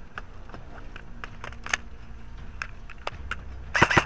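Scattered light clicks while an airsoft rifle is reloaded, then near the end a loud, rapid burst of airsoft rifle fire, about a dozen shots a second.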